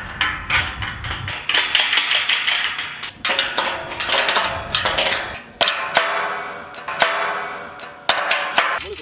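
A series of irregular hard knocks, about a dozen, each followed by a brief ringing.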